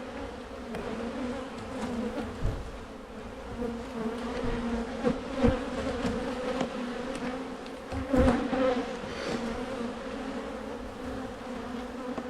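Honey bees from an open hive buzzing in a steady hum, with several knocks as the wooden hive boxes are handled, the loudest about eight seconds in.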